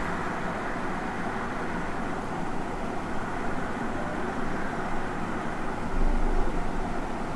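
Steady background noise picked up by the microphone, with a low rumble that swells about six seconds in.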